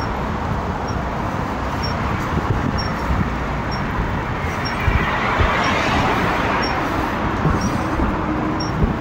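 Road traffic: the steady noise of cars driving past, with one vehicle swelling louder as it passes about halfway through and then fading away.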